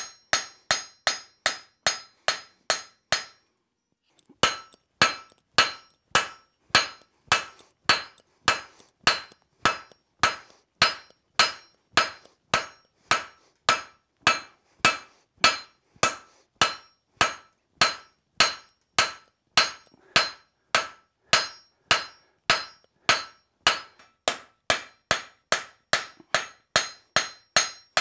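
Hand rounding hammer striking hot steel bar on an anvil: steady blows about two to three a second, each with a short metallic ring, drawing the bar out thinner. A brief pause about three seconds in, then the hammering resumes.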